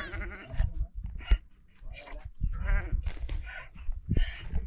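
Several goats bleating, a string of short wavering calls at different pitches, some overlapping, over a low rumble.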